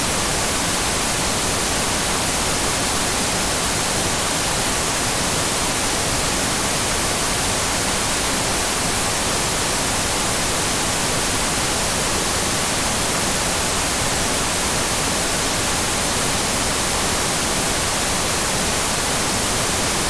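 Television static: a steady, even hiss of snow noise from an untuned TV, unchanging throughout.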